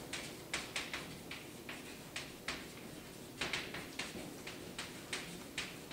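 Chalk tapping and scratching on a blackboard as someone writes, a string of sharp irregular clicks a few times a second.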